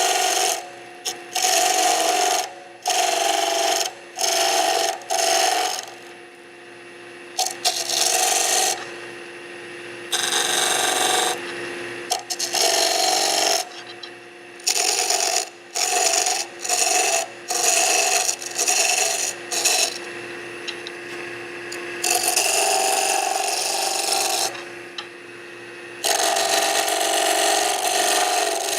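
Wood lathe spinning a wooden blank while a turning tool is pushed straight down into it in a sizing cut, a rough scraping rasp in repeated stretches of a second or a few seconds. Between the cuts the tool is off the wood and only the steady hum of the spinning lathe is left.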